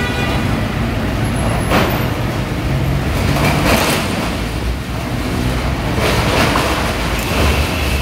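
Diesel engine of a wheel loader running at close range with a steady low rumble, and several short harsh noise surges over it during the demolition work.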